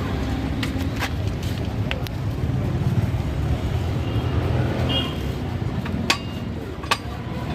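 Steady low rumble of road traffic with a few sharp clicks and knocks; the loudest knocks come about six and seven seconds in.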